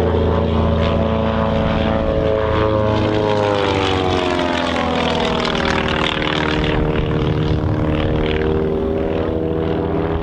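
Two propeller-driven aerobatic planes flying past, their piston engines and propellers making a loud, steady drone. The drone's pitch sweeps down and then back up a few seconds in as they pass.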